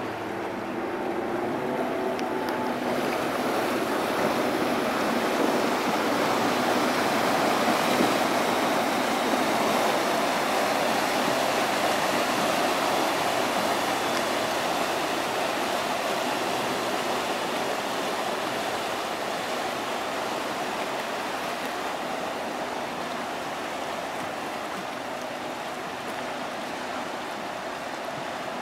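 Propeller wash from a passing inland motor cargo ship: a steady rush of churning water that swells over the first several seconds and then slowly fades as the ship pulls away. A faint diesel engine hum sounds under it at the start.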